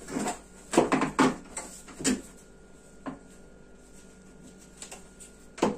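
Knocks and clatter of plastic and metal parts being handled and pressed into place under a dishwasher during reassembly. There is a quick cluster about a second in, then single knocks around two and three seconds and once more near the end.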